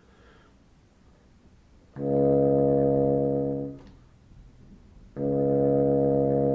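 Bassoon playing two long, steady low notes of the same pitch, a little over a second apart, testing the response of a newly adjusted reed in the low register. The reed speaks readily: its low-register response is much improved.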